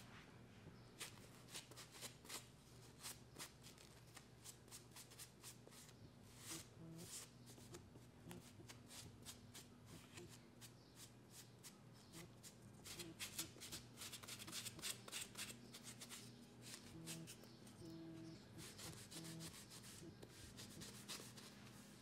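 A cloth rubbing mineral oil into a wooden spoon: faint, quick, irregular rubbing strokes that come thicker about two-thirds of the way through and again near the end.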